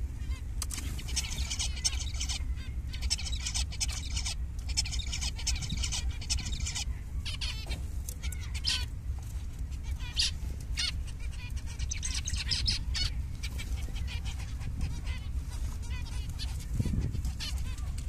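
A flock of zebra finches calling nonstop, many short, high calls overlapping in quick succession, over a steady low rumble.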